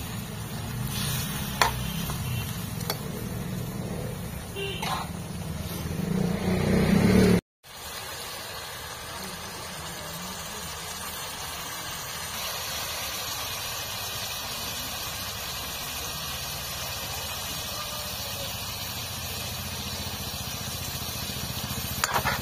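Chicken pieces frying in an iron wok over a wood fire: a steady sizzle, with a few sharp clicks near the end. Before a sudden cut about seven seconds in, a low rumble with a couple of clicks.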